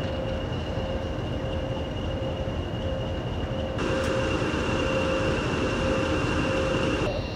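Diesel locomotive engines running with a steady low rumble. About four seconds in, the sound changes abruptly to a louder, fuller diesel engine close by, which drops back again just before the end.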